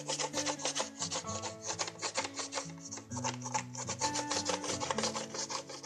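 Wax crayon rubbed rapidly back and forth over paper laid on a textured stencil plate, a fast run of dry, scratchy strokes.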